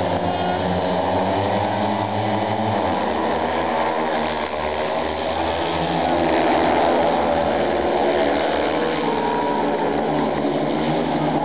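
Several speedway motorcycles racing together, their 500 cc single-cylinder methanol engines running loudly in overlapping notes that rise and fall in pitch as the riders accelerate and go through the bend.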